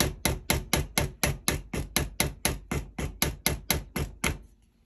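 Rubber mallet tapping a pin punch in quick, even strokes, about four a second, driving a barrel pin out through a wooden rifle stock. The tapping stops near the end.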